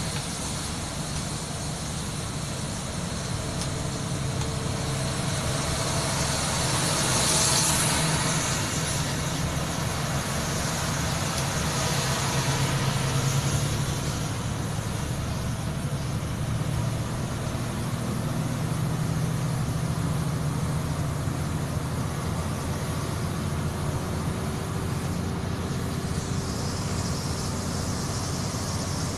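Steady engine drone and tyre hiss heard from inside a moving vehicle on a wet road, swelling louder with a brighter rush about seven seconds in and again around twelve seconds.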